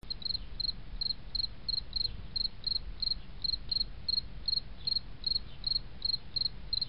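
An insect chirping: short, high chirps repeating steadily at about three a second, over a low steady rumble.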